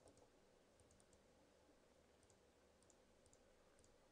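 Near silence with faint computer mouse clicks, several in quick pairs, as files are opened one after another.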